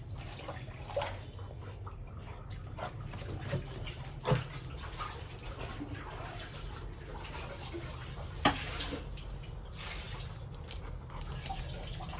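A Labrador retriever tugging at a towel and carrying it off: scattered rustles and small knocks, with two sharp knocks, one about a third of the way in and one about two-thirds in, over a steady low hum.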